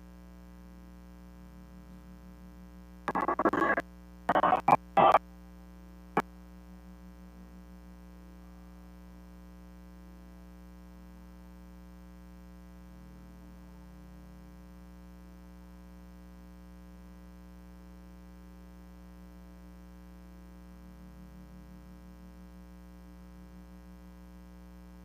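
Steady electrical mains hum with many overtones from the sound system, the kind of fault that spoils a recording. About three seconds in, a few short bursts of sound cut in and stop abruptly, followed by a single click.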